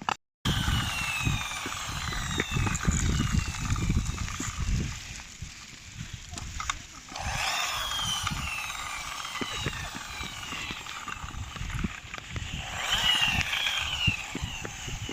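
Electric motor of a remote-control toy car whining, its pitch falling again and again as the car speeds up and slows, over an irregular low rumble.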